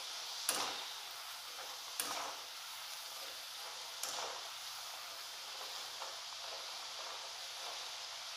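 Taro wedges deep-frying in a wok of hot oil: a steady sizzling hiss, with three short sharp pops about half a second, two and four seconds in. The wedges are still partway through frying, not yet fully cooked inside.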